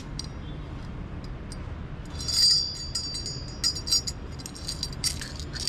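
Stainless steel nunchaku being handled, its metal parts clicking and clinking against each other, with one ringing clink a little over two seconds in.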